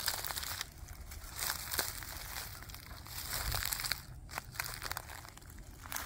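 Footsteps in sneakers crunching and crackling through dry fallen leaves, with sharp little snaps of acorns and twigs underfoot. The crunching comes in uneven bursts with a few brief pauses between steps.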